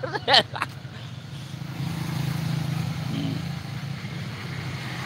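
A motor vehicle engine running nearby, a steady low drone that grows louder about two seconds in and then eases off a little.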